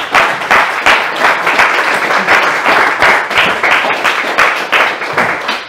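Audience applauding, a dense run of many hands clapping that begins to die down near the end.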